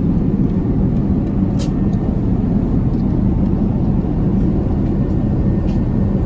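Airliner cabin noise in flight: a loud, steady low rumble of the engines and rushing air.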